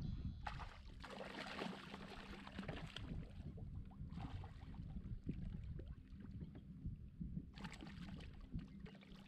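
A hooked bass splashing and thrashing at the water's surface in three bursts, the last near the end as it breaks the surface, over a low steady rumble.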